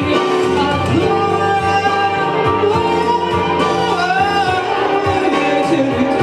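A slow blues song performed live: a woman singing with wavering, sustained notes over instrumental accompaniment.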